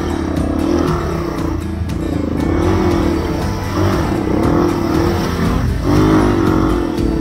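Honda XR250 dirt bike's single-cylinder four-stroke engine revving up and down again and again, in surges about once a second, as the throttle is worked on a muddy trail.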